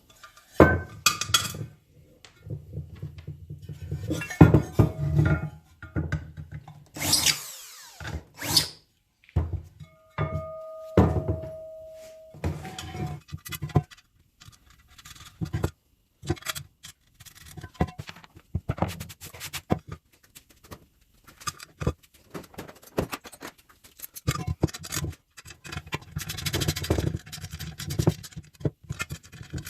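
Metal parts and hand tools knocking and clanking in a series of short, irregular knocks and clicks during bench assembly, with background music.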